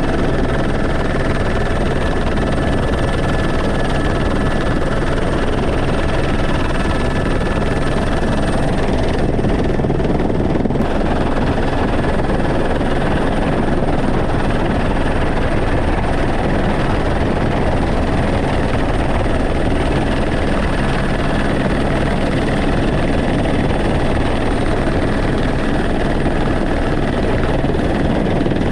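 Helicopter in flight, heard from inside its cabin with the side open: steady rotor and turbine noise with a thin high whine on top.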